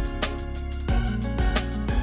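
Background music with a steady beat and plucked-string instrument notes.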